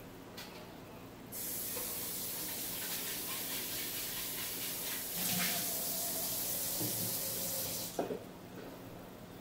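Kitchen tap turned on and running water steadily for about six seconds, then shut off abruptly, with a short knock as it stops.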